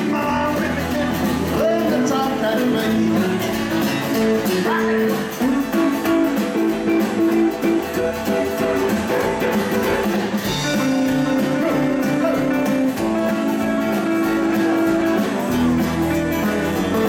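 Live rockabilly band playing: electric guitar, acoustic guitar, upright double bass and drums.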